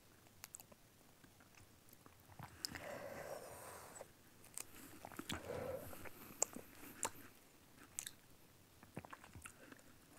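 Faint chewing with scattered soft mouth clicks and smacks: a person eating a spoonful of charoset, a paste of chopped almonds and fruit, mixed with a bitter-herb paste.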